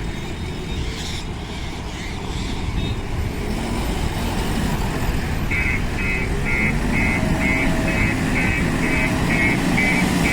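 JCB 3DX Plus backhoe loader's diesel engine running steadily. About halfway through, its reversing alarm starts beeping about twice a second as the machine backs up.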